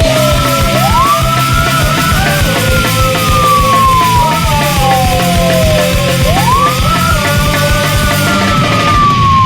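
Hockey goal song playing loud: punk-rock music with drums and guitars. Twice, once about a second in and again about six seconds in, a siren-like tone rises quickly and then falls slowly over several seconds.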